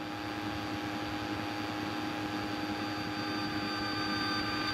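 Steady engine drone inside a light aircraft's cabin in flight, a constant hum with a few steady tones over a noisy rush, growing slowly louder.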